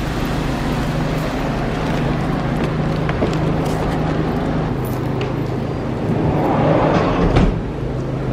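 A vehicle engine running with a steady low hum, with a few light clicks and knocks over it.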